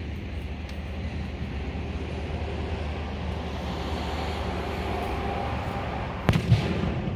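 Fireworks shells bursting: two sharp bangs in quick succession about six seconds in, over a steady low rumble.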